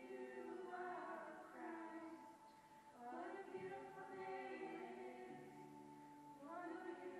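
A choir of several voices singing slowly, holding long notes in phrases, with short breaks about three seconds in and near the end. The singing sounds faint.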